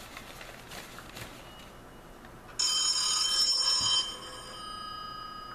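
A GE desk telephone ringing once: a steady electronic ring starts suddenly about two and a half seconds in, stays loud for about a second and a half, then carries on more softly.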